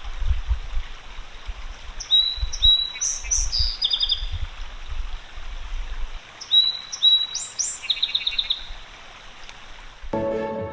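A songbird singing two short phrases a few seconds apart, each of clear whistled notes followed by a quick trill, over a steady outdoor hiss with low rumbles in the first half. Music comes in near the end.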